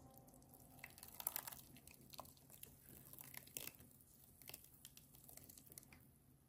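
Faint, soft wet sounds of thick peri peri sauce sliding out of a plastic jug onto raw chicken pieces in a bowl, with scattered small clicks.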